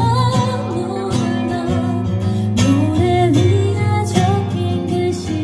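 Live acoustic duo: a woman singing a melody over a strummed acoustic guitar.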